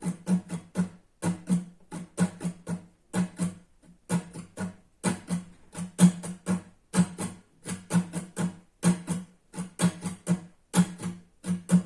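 Acoustic guitar strummed with the strings muted, so each stroke is a short percussive scratch with no chord ringing on. The strokes are quick and come in a steady, repeating campfire strumming pattern with brief breaks between groups.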